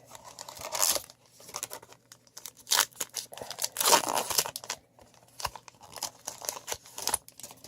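Paper-and-foil wrapper of a baseball card pack torn open and crinkled, in several short rips, the loudest about four seconds in, with small rustles and ticks between.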